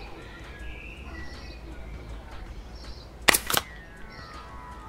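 A single shot from a Walther Rotex RM8 pre-charged pneumatic air rifle: a short sharp crack with a second crack about a quarter second later, over faint garden birdsong.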